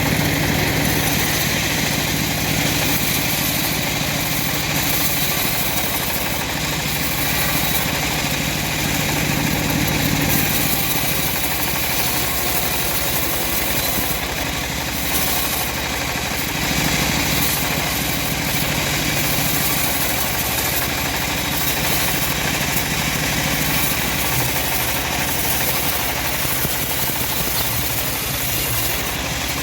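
Homemade bandsaw mill running steadily through lamtoro wood, a loud machine drone whose tone shifts a couple of times.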